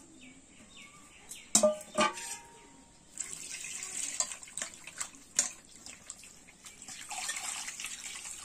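Water splashing and trickling in uneven bursts as food is washed in a vessel, starting about three seconds in. Before it come two sharp knocks half a second apart, the second followed by a short ringing tone.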